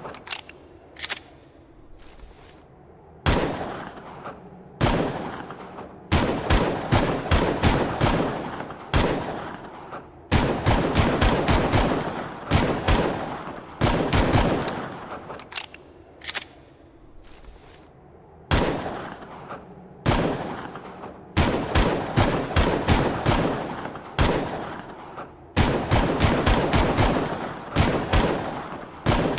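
Longslide pistol gunshot sound effect, fired in single shots and in quick runs of about four shots a second, each shot trailing off in an echo.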